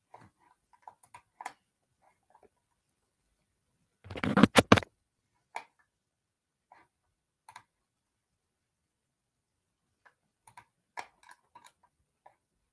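Scattered computer keyboard and mouse clicks close to the microphone, with a louder cluster of knocks about four seconds in.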